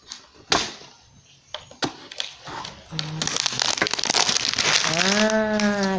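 Plastic seal wrap being torn and peeled off a boxed skincare set: a few handling knocks, then steady crinkling from about three seconds in. A woman's voice starts near the end.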